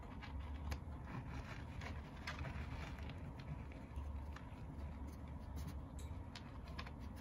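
Scattered light clicks and scratchy rustles from cats moving about: an adult cat shifting in pellet litter inside a hooded litter box, and a kitten pawing at the wire bars of a pen. A low hum sits underneath.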